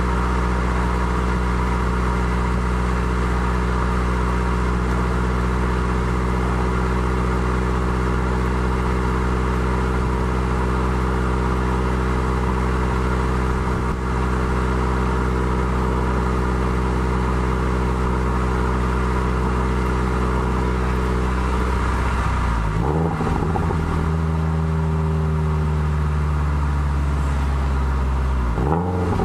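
Exhaust of a 2013 Subaru WRX's turbocharged flat-four, through a Maddad turboback exhaust and Killer B equal-length headers, recorded right at the tailpipes. The engine holds a steady speed for about twenty seconds, then its pitch drops and comes back up twice near the end.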